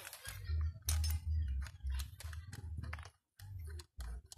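Irregular small clicks and light metallic taps from hands handling wiring, a ring terminal and tools at a car battery terminal, with a few dull bumps.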